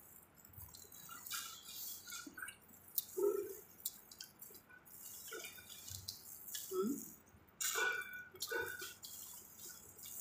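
Close-up eating sounds: plastic-gloved hands pulling apart sauce-covered crab and other seafood, with wet chewing and mouth smacks and scattered sharp clicks of shell.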